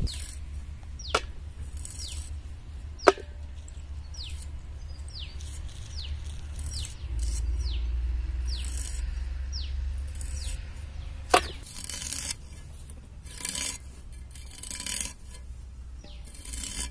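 Ivy gourds being sliced lengthwise on an arivalmanai, a curved blade fixed on a floor board: crisp cutting sounds with a few sharp clicks. Birds chirp short falling calls in the background.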